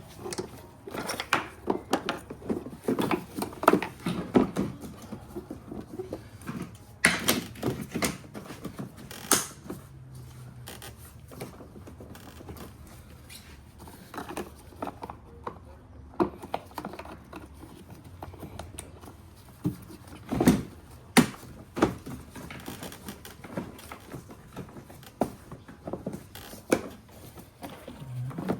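Hand work on car parts: scattered, irregular clicks, knocks and rattles as a BMW engine control unit (DME) and its fittings are put back in place, busiest in the first ten seconds and with a few louder knocks about twenty seconds in.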